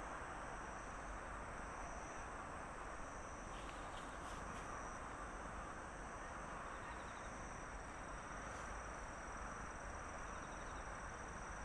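Steady outdoor ambience with insects trilling in high, unbroken tones, and a few faint clicks about four seconds in.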